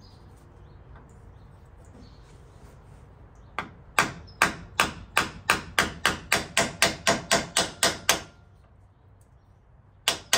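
A mallet hammering a seal driver to drive a new rear axle seal into a Toyota Tacoma's rear axle housing. About sixteen sharp strikes come in a steady run that quickens to about four a second, then a short pause and two more strikes near the end.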